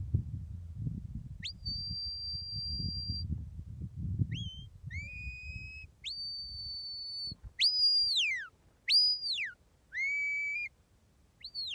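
A shepherd whistling commands to a working sheepdog herding sheep: a series of sharp, high whistle notes, some held steady for a second or more, others rising or falling in pitch, with short gaps between them.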